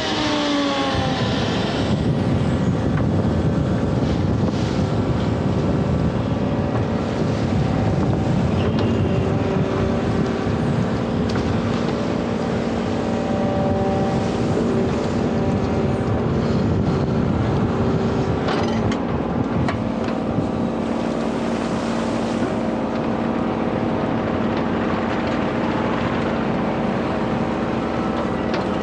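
Kubota U35-4 mini excavator's diesel engine and hydraulic-driven brush cutter head running while mowing tall grass and reeds: a loud, steady machine drone with a constant whine. The pitch drops in the first second, then holds steady.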